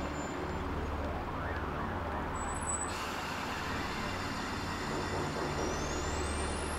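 Film soundtrack: a low, traffic-like rumble that swells and fades, with a thin high tone rising steeply in pitch over the last second.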